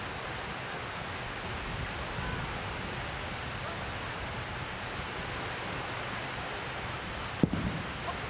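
Small waves washing onto a sandy beach: a steady surf hiss, with one brief knock about seven and a half seconds in.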